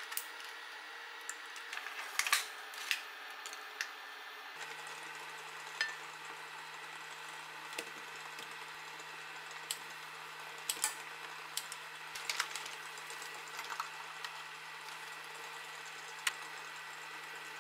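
Sparse light clicks and snips of kitchen scissors cutting fish cake, with the clack of metal tongs, over a low steady hum that begins a few seconds in. Before that, a few sharp taps come from quail eggs being cracked into a pan.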